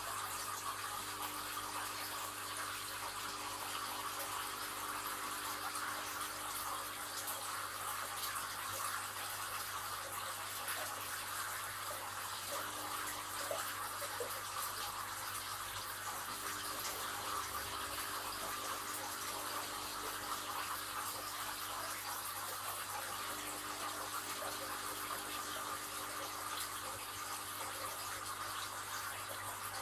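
Aquarium water circulating and bubbling at the surface, a steady splashing hiss, with a low steady hum from the tank's pump equipment underneath.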